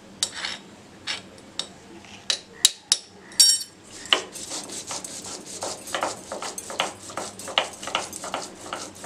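A stone roller worked back and forth on a stone grinding slab (shil-nora), crushing paneer: repeated scraping and knocking strokes of stone on stone, sparse at first, then a quick, steady run of about two or three strokes a second from about four seconds in. A brief ringing clink comes a little after three seconds.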